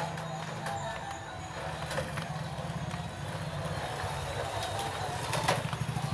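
Toy RC stunt car's small electric gear motors buzzing steadily as it drives and tumbles, with a few sharp knocks of its plastic body and wheels hitting the concrete floor, the loudest about five and a half seconds in.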